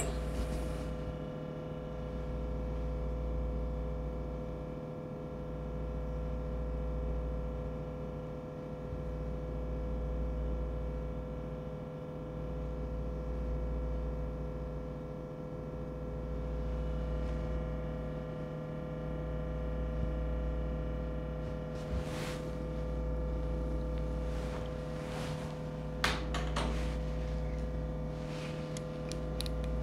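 A steady background hum made of several steady tones, with a deep low throb that swells and dips about every three and a half seconds. Near the end come a few small clicks and taps as sunglasses are picked up from a countertop.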